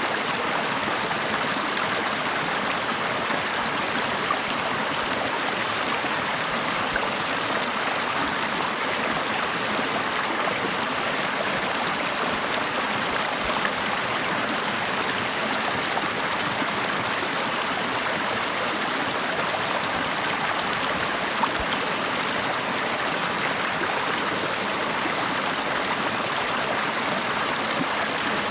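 Water of a stream flowing steadily, an even unbroken rush of running water.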